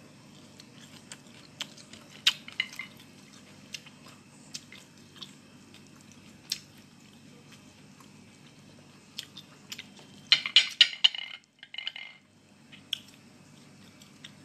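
Close-up eating sounds of someone chewing soft blanched moringa leaves: scattered wet clicks and lip smacks, with a louder flurry of chewing about ten seconds in.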